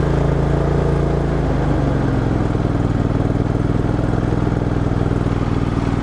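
John Deere GX345 lawn tractor's V-twin engine running steadily, its note changing slightly about two seconds in.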